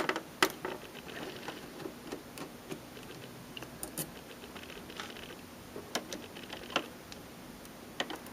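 Scattered light clicks and ticks of a hand screwdriver backing out the small screws that hold a cassette deck's capstan cover, with the screws and parts being handled.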